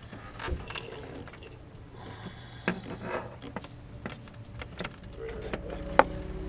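Small clicks and knocks of hands and metal parts being worked into an engine's timing cover, with a sharp click about six seconds in. A low steady hum joins about five seconds in.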